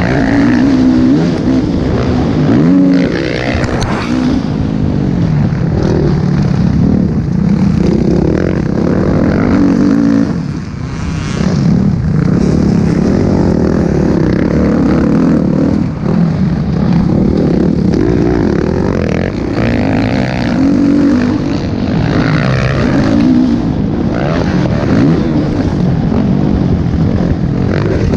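Motocross dirt bike engine heard from on board while racing, revving hard and rising and falling in pitch through the gears. The throttle eases off briefly about ten seconds in and again about sixteen seconds in.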